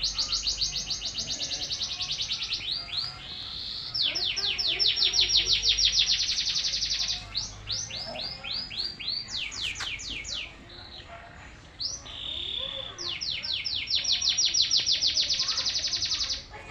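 Small songbird singing long, rapid trills of quick, high, down-sweeping notes, about eight a second, in several runs of a few seconds with short pauses between them.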